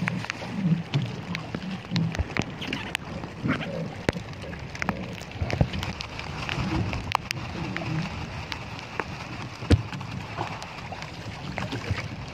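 Rain pattering with wind noise, with many scattered sharp taps and crackles.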